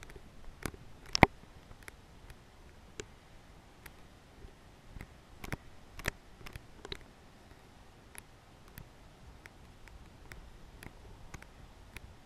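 Scattered light clicks and knocks at irregular intervals, the sharpest about a second in.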